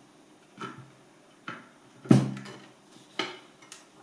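A few separate knocks and clunks, the loudest about two seconds in, as the Mazzer Mini-e grinder's housing parts are handled and fitted back together around the tucked-in wires.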